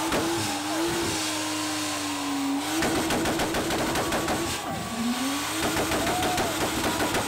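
Car engine held at high revs during a burnout, with a fast crackling rattle through much of it and a brief rise in revs about five seconds in.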